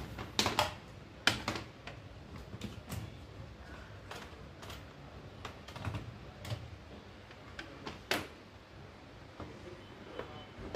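Irregular light clicks and knocks from handling the opened desktop PC, about one or two a second. Two sharper knocks come about a second in and about eight seconds in.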